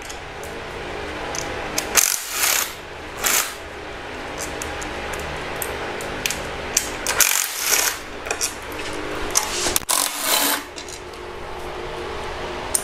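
Cordless ratchet unscrewing the 10 mm timing-cover bolts, its motor whirring in several runs that stop briefly between bolts. Sharp metallic clinks come between the runs, about a dozen times.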